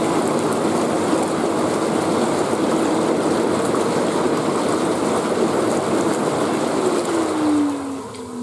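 Intex PureSpa inflatable hot tub's bubble massage running: its air blower hums steadily while air bubbles up through the holes around the tub, a loud, even rush of churning water. About seven seconds in, the bubbling dies down and the blower's hum slides down in pitch as the motor winds down.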